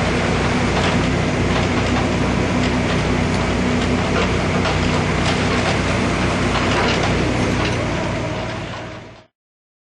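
Bobcat 329G mini excavator running: a steady diesel engine note with frequent metallic clanking and rattling from the machine. It fades out and cuts off about nine seconds in.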